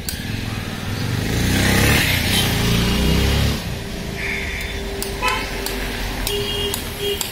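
A motor vehicle's engine passing close by, swelling to its loudest about two seconds in and fading away within a few seconds, followed by a steady, quieter engine hum.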